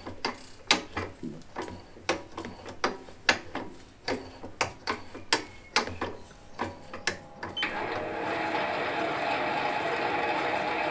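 Sharp mechanical clicks, about two or three a second, as a tap is turned by hand through a milling machine's loosened R8 collet holder to thread an 8-32 UNC hole in a steel flywheel. About two-thirds of the way in this cuts to the steady running of a lathe spinning the flywheel to check that it runs true.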